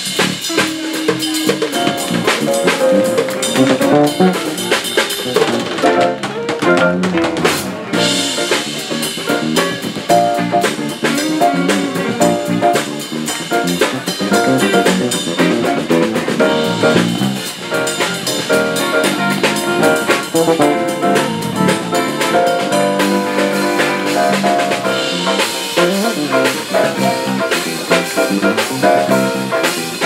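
Live band playing an instrumental passage: drum kit, electric bass, electric and acoustic guitars and electric keyboard together, with a steady beat on the drums.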